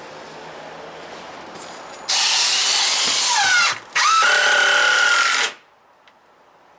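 A handheld power drill run twice into timber sleeper boards, each run about a second and a half with a brief pause between. The motor's pitch drops late in the first run as it comes under load, and holds steady through the second.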